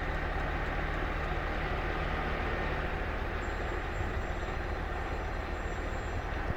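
An engine running steadily: an even low drone with no change in speed.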